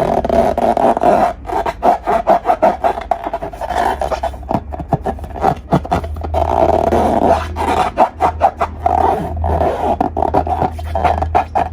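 Rubber balloons squeaking and scraping as they are rubbed and squeezed by hand: a continuous rough, crackling squeak over a low hum.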